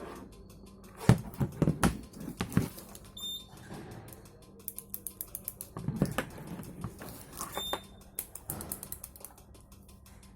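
Irregular clicking and knocking, as of small mechanical parts being handled and worked, with a loud cluster about a second in and again around six seconds. Two short high electronic beeps sound, about 3 s in and near 8 s.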